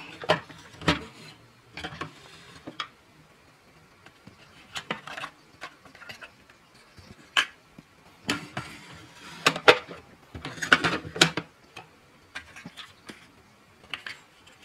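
Small plastic toy pieces clicking and knocking, handled one after another: miniature play-food boxes and a can taken out of a plastic toy fridge and set down on a wooden tabletop.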